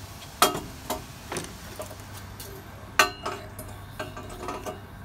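Irregular sharp metallic clinks and taps of hand tools against metal engine parts, about seven in all, the loudest about three seconds in. A faint steady hum sits underneath from about two seconds in.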